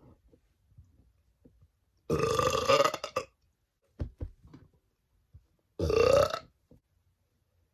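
A woman burping loudly twice, on command. The first burp starts about two seconds in and lasts about a second; a shorter one comes near the end. A few faint mouth clicks fall between them.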